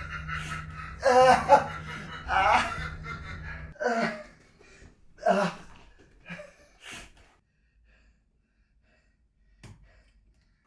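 A person gasping and laughing in loud, irregularly spaced outbursts, about seven of them, over a steady hum that cuts off suddenly a little under four seconds in; then near silence with one faint click.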